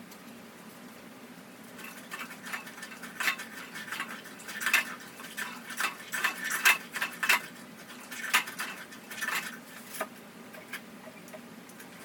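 Utensils being washed by hand: pots and dishes clattering and scraping against each other in irregular bursts, busiest through the middle and stopping about two seconds before the end.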